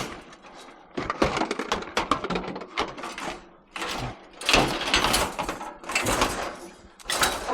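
Irregular bursts of scraping, rustling and clattering as scrap items are shifted around and rearranged by hand.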